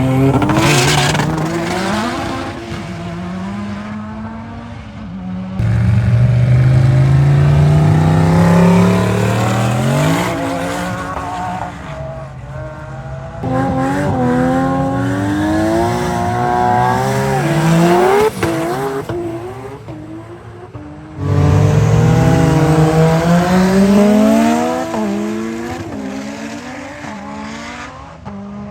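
Race cars accelerating hard at full throttle. Engine pitch climbs through each gear and drops back at every shift, in several loud runs one after another, with some tyre noise.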